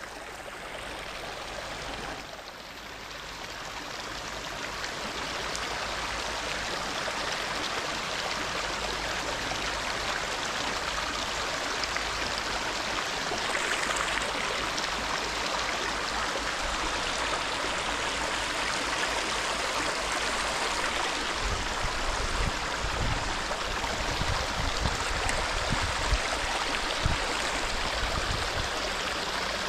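Shallow river water running over stones in a riffle, a steady rush of water. A few low bumps sound on the microphone in the second half.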